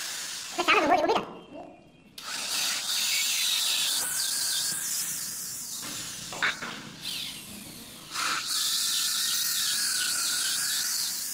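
Corded electric drill boring into a round wooden block. It runs in two long stretches of several seconds, with a steady whir, and stops briefly about two seconds in.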